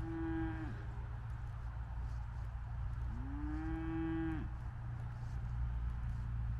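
A farm animal giving two drawn-out, moo-like calls: a short one at the start that falls away at its end, and a longer one about three seconds in that rises, holds level and then drops off. A steady low rumble lies underneath.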